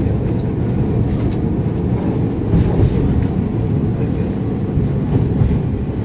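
Inside a JNR KiHa 52 diesel railcar running along the line: the steady low sound of its twin DMH17 diesel engines and wheels on the rails, with a few faint clicks.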